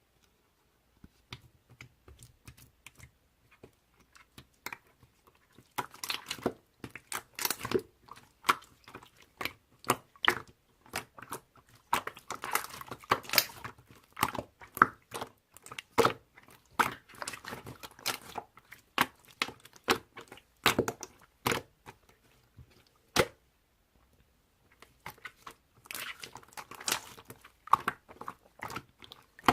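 Close, irregular crackling and crunching, like something being crinkled or crunched, in two busy spells with a quieter stretch between them.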